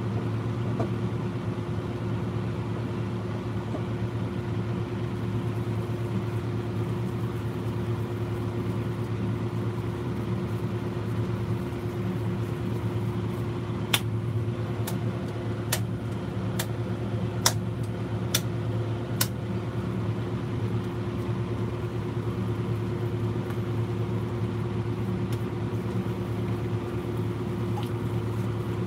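Steady machine hum with a constant low tone throughout, and about five sharp slaps about halfway through as raw hamburger meat is patted between the palms to shape a patty.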